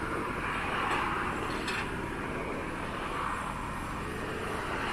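Tram running along the track: a steady rumble of wheels on rails and running gear, swelling and easing slightly.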